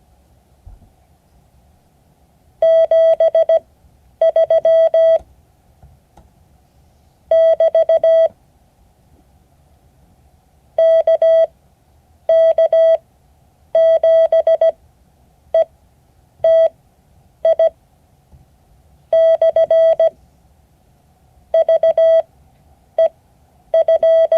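Morse code sent as a steady mid-pitched beeping tone. Each letter is a quick cluster of short and long beeps, with a second or two of silence between letters, spelling out an amateur radio call sign.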